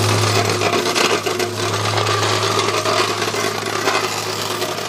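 Small petrol-engined vibrating plate compactor running steadily as it tamps fresh asphalt by hand, a constant low hum under a rough mechanical rattle. It eases off a little near the end.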